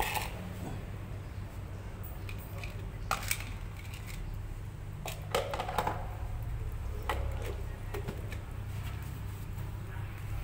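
Plastic food bowls handled and knocked against a concrete floor: a few scattered clicks and clatters over a steady low rumble.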